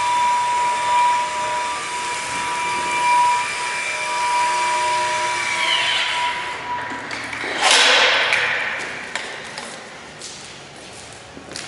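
DeWalt DC545K cordless caulk gun's motor whining steadily as it drives adhesive out of the tube, then winding down and stopping about six to seven seconds in. A short loud hiss follows near eight seconds, then a few light clicks.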